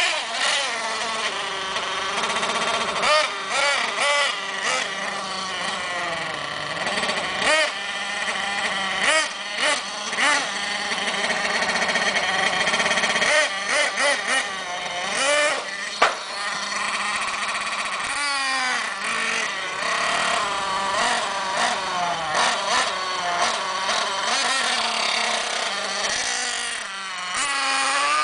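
Nitro RC monster truck's PRO 8.2 cc glow engine running at high revs, its high-pitched whine rising and falling again and again as the throttle is opened and closed, with a few sharp knocks, the loudest about halfway through.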